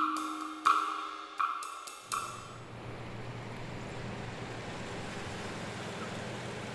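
The tail of a music cue: about four cymbal hits a little under a second apart, each left ringing. About two seconds in, a steady faint hiss with a low hum takes over.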